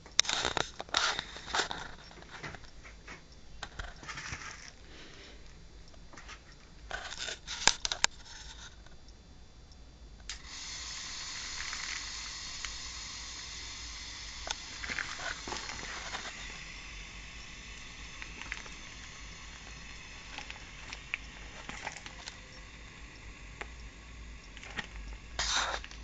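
Plastic vacuum-bagging film crinkling and crackling, in loud clusters near the start, around seven seconds and near the end. About ten seconds in, a steady hiss starts abruptly and slowly fades.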